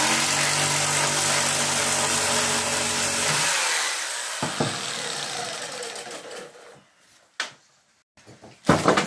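Handheld jigsaw cutting across a thin wooden strip, with a steady motor whine and a rasping blade. About three and a half seconds in it is switched off and the motor winds down with falling pitch over the next few seconds. A couple of short knocks follow.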